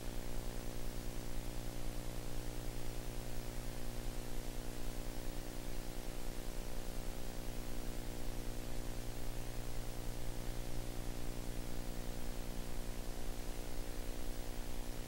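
Steady electrical hum with many overtones and a buzzing flutter, over constant hiss. This is the noise floor of an old film or video transfer with no sound of its own.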